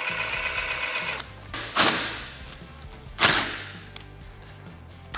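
Cordless driver running briefly as it drives a bolt into the roll-cage mount bracket, stopping about a second in. Then two loud, sharp knocks about a second and a half apart.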